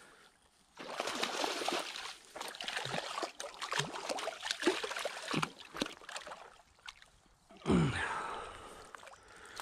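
A hooked redfin perch splashing and thrashing in shallow river water as it is drawn in to the bank: a busy run of splashes starting about a second in, a short lull, then another burst near the end.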